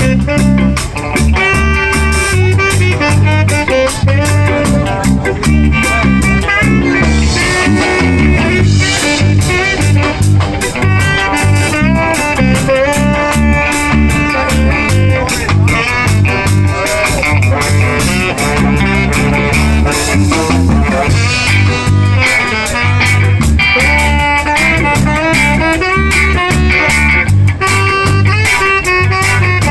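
Live band playing an instrumental stretch, with guitar over a steady beat.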